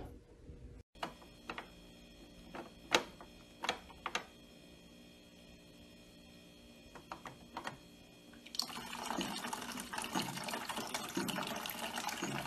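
A few scattered light taps and clicks, then, about eight and a half seconds in, a steady run of water filling, as a cat paws at a countertop water dispenser.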